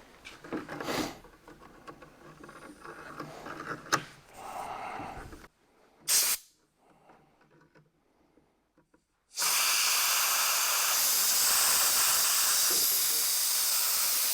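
Compressed air from a shop air line hissing into a truck's air-ride seat base to inflate it: a short puff about six seconds in, then a steady loud hiss for the last five seconds. Before that there is handling clatter with one sharp knock.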